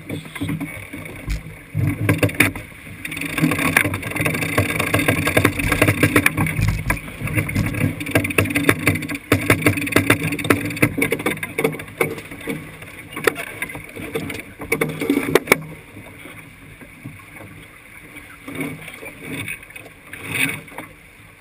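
A racing sailboat under way: water rushing and splashing along the hull, with wind on the microphone. A dense run of knocks and rattles from deck gear and crew work starts about two seconds in and dies away after about fifteen seconds.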